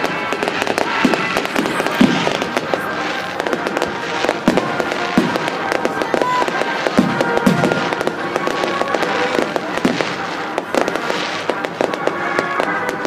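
Fireworks display: a dense, continuous crackling of bursting stars, with dull booms of shells going off every second or two.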